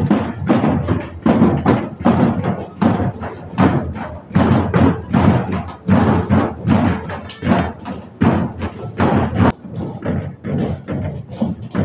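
A group of dhol drums with shiny steel shells beaten together by marching drummers: a loud, pounding beat of heavy strokes about twice a second, with lighter strokes in between.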